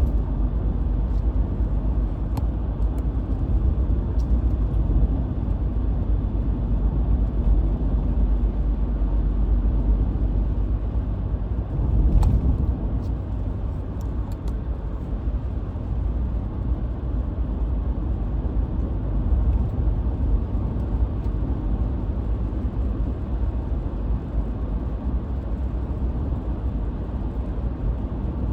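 Steady low rumble of a 2020 Ford Ranger pickup driving on a snowy road, engine and tyre noise heard from inside the cab. There are a few faint clicks, and a brief louder swell about twelve seconds in.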